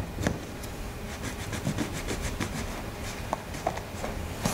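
Solvent-soaked rag rubbing and scrubbing along rubber weather stripping to work paint off it: a run of short, faint scratchy strokes with small clicks, several a second.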